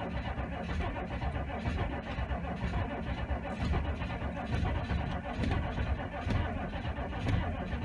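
Starter cranking a cold 6.5 L turbo-diesel V8 slowly over and over, the engine not catching. The owner suspects the slow cranking comes from an old starter.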